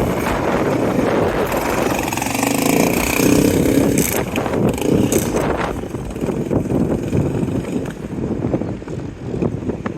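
Honda TRX700XX ATV's 700cc single-cylinder engine running through aftermarket Yoshimura exhaust pipes, its pitch rising and falling in the first few seconds, then more uneven from about six seconds in.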